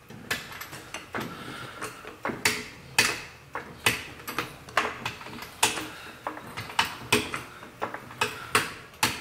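Car jack being worked under the front brake rotor, each stroke giving a sharp mechanical click, about two to three a second, as it lifts the suspension and compresses the air bag.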